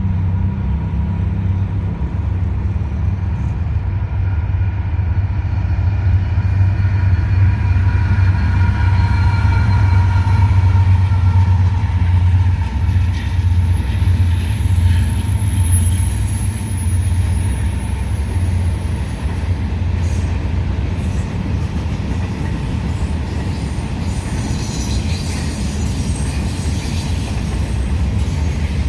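Diesel-hauled intermodal freight train passing close by. A heavy, steady low rumble builds over the first few seconds and is strongest in the first half as the locomotives go by. The cars then roll on with a thin high wheel squeal for a few seconds midway.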